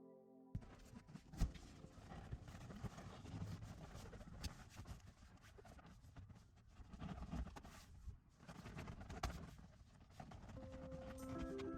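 Faint irregular clicks and knocks over a low rustling noise; music comes back in near the end.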